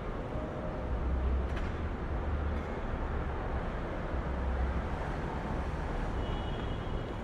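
City side-street traffic: a steady low rumble of vehicle engines and road noise that swells twice, with a faint high-pitched tone near the end.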